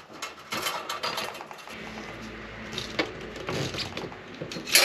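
Small metal clicks and clinks as Honda Beat engine rocker arms are handled and slid onto their rocker shafts in a steel tray, with rustling of wire and gloves. A low steady hum comes in about two seconds in.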